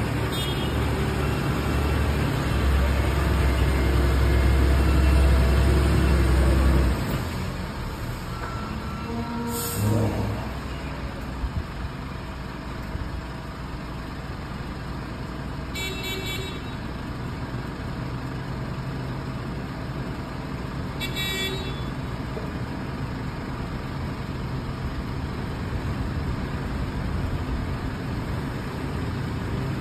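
Heavy diesel truck engine running hard with a strong low rumble for about the first seven seconds, then dropping to a quieter steady running. Short horn toots sound twice later on, and there is a brief hiss-like burst shortly after the engine drops.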